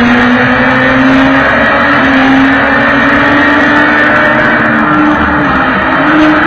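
Sport bike engine pulling hard under acceleration, its pitch rising steadily, with a brief dip and recovery about five seconds in, typical of an upshift.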